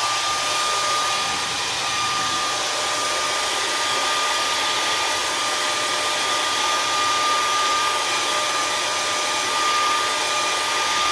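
Handheld blow dryer running steadily: a loud rush of air with a steady high whine. It is being used in place of a heat gun to soften the adhesive under a tablet's glass screen.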